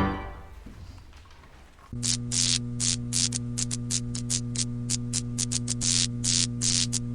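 The last of a pipe organ's final chord dies away in the church's reverberation. From about two seconds in there is a steady electrical mains hum with irregular bursts of static crackle.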